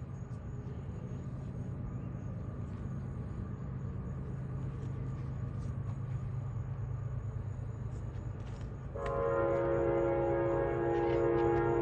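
A low steady rumble, then about nine seconds in the horn of an approaching CSX freight locomotive sounds one long multi-note blast.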